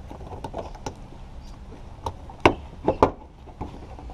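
Plastic bumper cover and wheel-arch trim being pulled and flexed by hand: a series of sharp clicks and knocks, the loudest two about two and a half and three seconds in.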